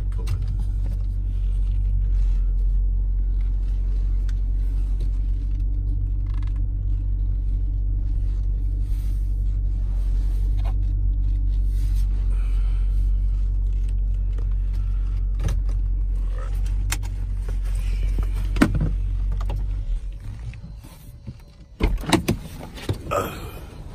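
Dodge Durango SRT's 6.4-litre 392 HEMI V8 idling steadily with a deep low hum, then cutting off near the end. A few sharp clicks and knocks follow.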